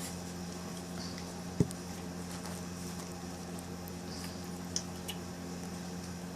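Faint patter and scuffling of a three-week-old boxer puppy moving about at play, with one sharp knock about a second and a half in and a small click later, over a steady low hum.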